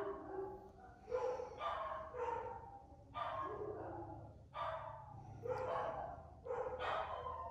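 Capuchin monkeys making soft, breathy whimpering calls, a short one repeated roughly every half second to second, each falling slightly in pitch.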